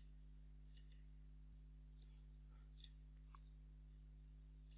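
Computer mouse clicking: a click at the start, a quick double click just under a second in, single clicks at about two and three seconds, and a quick run of clicks at the end, with faint steady hum between.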